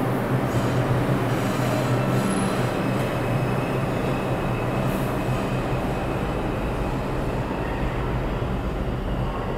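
New York City IRT subway train pulling out of the station, a steady rumble as its last cars roll past, with a faint high wheel squeal a few seconds in. The rumble eases off slightly toward the end as the train leaves.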